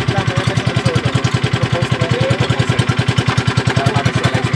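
Small boat engine running steadily with a rapid, even chugging.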